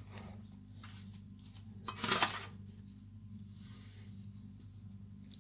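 Wet mint sprigs being lifted from a basin of water and dropped into a metal colander: one short rustling burst about two seconds in and a fainter one near four seconds, over a steady low hum.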